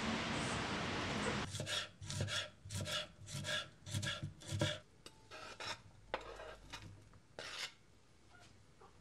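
Steady rain hiss for the first second and a half. Then a kitchen knife chops green peppers on a wooden cutting board: a quick run of cuts, about two or three a second, for some three seconds, followed by a few slower, lighter strokes.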